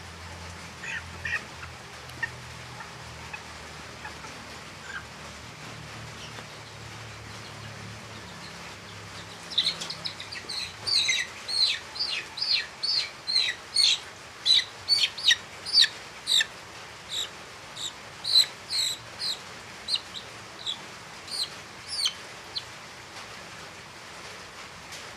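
Chicks peeping: a run of short, high calls at about two a second, starting about ten seconds in and stopping some twelve seconds later, with a few fainter calls near the start over a steady hiss.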